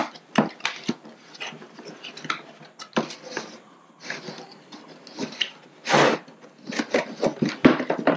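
Cardboard packaging being handled: a box opened and its inner cardboard insert lifted out, making an irregular run of rustles, scrapes and light knocks, with a louder scrape about six seconds in.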